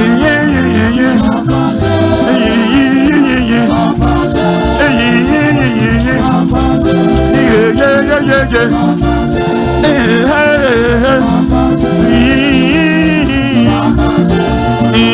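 Gospel music: a singing voice weaving a melody over a band with a steady beat and a repeating bass line.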